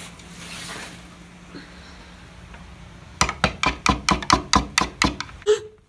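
Rapid knocking on a door: about a dozen quick knocks in two seconds, starting about three seconds in.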